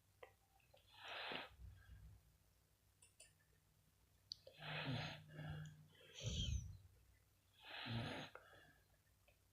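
Sleeping dog snoring in human-like snores: four loud, rasping snore breaths, about one every two to three seconds, the third one deep and low.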